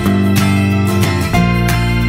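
Background music led by a plucked guitar, with notes picked in a steady rhythm over held chords.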